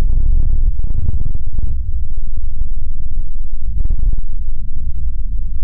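Big Mouth Billy Bass singing-fish toy's sound slowed far down into a loud, deep, continuous rumbling drone with no clear words or tune.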